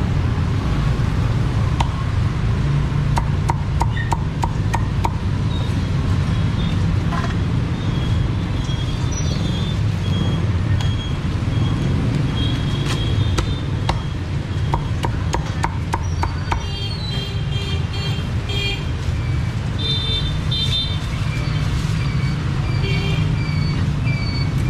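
Cleaver chopping crispy roast pork on a thick wooden chopping block, coming in quick runs of sharp strikes with single cuts between them. A steady low rumble runs underneath.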